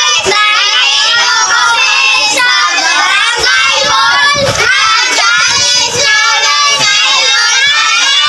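A group of children laughing and calling out together, many high voices overlapping without a break.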